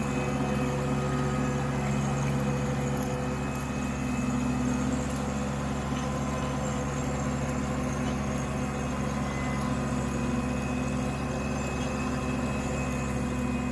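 TYM T264 compact tractor's diesel engine running steadily under load while it pulls a rear rotary tiller through the garden soil.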